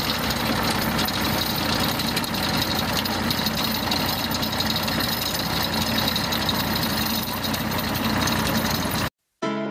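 Tractor engine running steadily at low speed while the tractor pulls a rear-mounted digging implement through the soil, mixed with the noise of the implement and tyres. It cuts off abruptly near the end.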